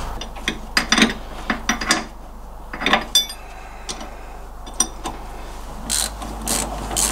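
Ratchet wrench clicking in short bursts as a front wishbone bolt on an MGB's suspension is tightened, with a denser run of clicks near the end.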